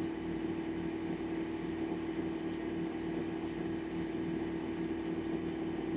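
A steady machine hum with a constant low drone and a faint regular pulsing underneath.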